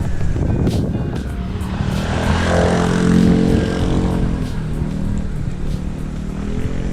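A motor vehicle passing close by, growing louder to a peak about three seconds in and then fading, over background music.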